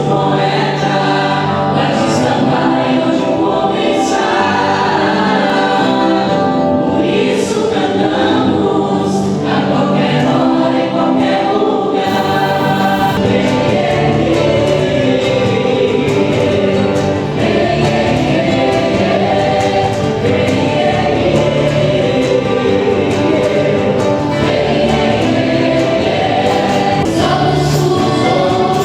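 A choir singing a song with instrumental accompaniment, at a steady, full level.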